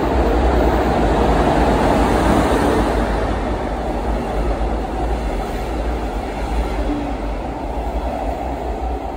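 A red double-deck regional train hauled by a Class 112 electric locomotive passing through an underground station without stopping: a steady rumble of wheels on rails, loudest in the first few seconds and easing slightly as the coaches go by.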